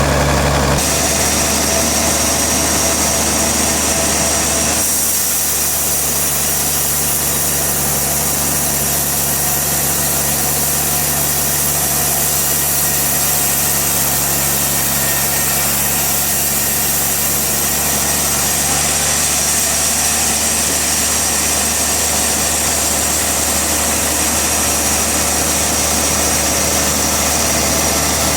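Sawmill machinery running steadily, with a continuous engine hum. The sound changes abruptly about a second in and again near five seconds.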